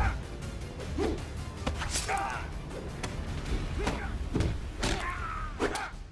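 Hand-to-hand fight: a run of sharp punch and block impacts with grunts of exertion, over a steady low music score.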